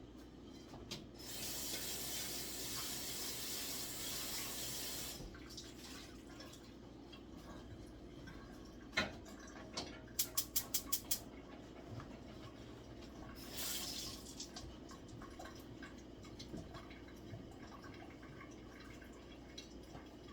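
Water runs from a kitchen tap for about four seconds. Later a gas stove burner's igniter clicks rapidly about seven times, followed by a short rush of noise, under a faint steady low hum.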